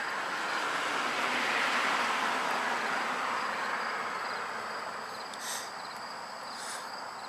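A passing vehicle's road noise swells over about two seconds and then slowly fades, with insects chirping and a few short chirps near the end.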